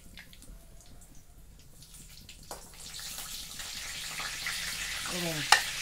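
Bay leaves frying in hot oil in a steel kadhai: a faint sizzle that grows steadily louder from about halfway. Near the end there is a brief voice sound and one sharp click.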